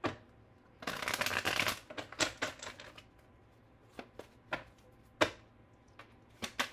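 A tarot deck being shuffled by hand: a quick run of card flicks about a second in, then scattered single card taps.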